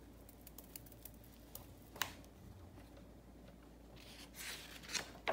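Faint handling sounds: a few light taps and clicks, then a short paper rustle as a picture book's page is turned near the end.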